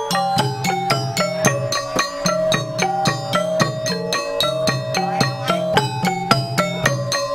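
Music with a fast, even run of struck, pitched notes over a steady low accompaniment.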